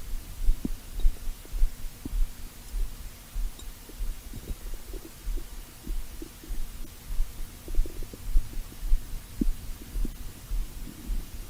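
A human stomach recorded close up: a steady low pulsing throb with small scattered gurgles and squeaks from the gut, rather than a big growl.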